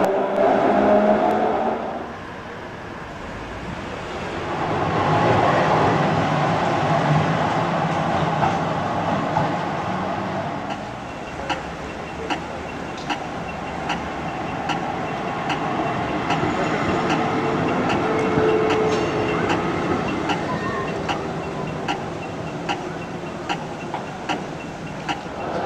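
Electric trams and road traffic passing on a city street. At the start there is a steady motor hum, and a vehicle then passes with a swell of noise that rises and fades. From about eleven seconds in there is a regular run of sharp clicks, roughly one or two a second.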